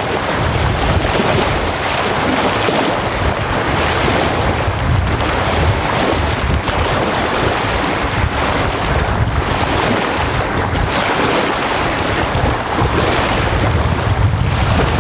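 Small wind-driven waves breaking and washing up on a sandy lake shore in a steady wash that swells and eases every few seconds. Strong wind buffets the microphone as a low rumble, heaviest near the start and near the end.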